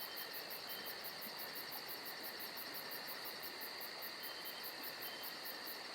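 Crickets chirping faintly in a rapid, even rhythm, as at night.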